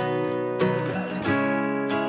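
Background music: acoustic guitar strumming chords, a new strum about every two-thirds of a second.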